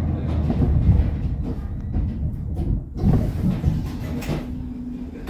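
Inside a 1981 LHB GT6 articulated tram with its trailer car, the car running on the rails with a low rumble, a cluster of clunks about three seconds in, and a short steady tone near the end.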